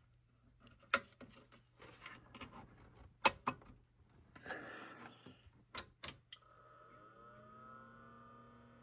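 Faint clicks and knocks of hands handling the open chassis and mainboard of an HP 54600-series oscilloscope. About six seconds in, a click, then the scope powers up: its cooling fan spins up, rising in pitch, and settles into a steady hum.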